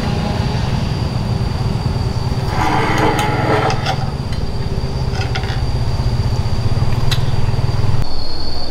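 A small engine running steadily, with a few knocks and clicks in the middle; the engine stops sharply near the end, leaving a high steady whine.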